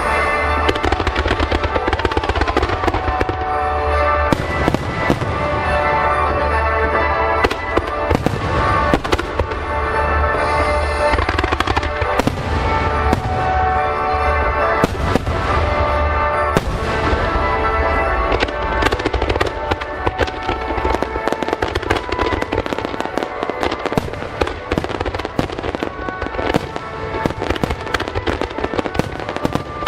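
Aerial fireworks bursting and crackling, with many sharp cracks that come thicker in the second half, over music playing throughout. A low rumble under them fades out about two-thirds of the way in.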